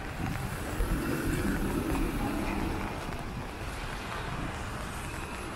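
Traffic on a wet street: a vehicle driving past with tyres hissing on the wet asphalt, loudest from about a second in, over wind noise on the microphone.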